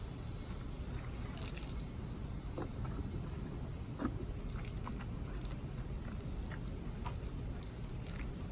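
Wet work on a car wheel and tire: scattered small clicks and drips, with a brief hiss about a second and a half in, over a steady low rumble.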